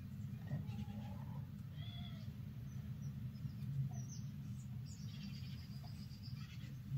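Faint, short animal calls, one with a bending pitch about two seconds in and thinner high calls later, over a steady low hum.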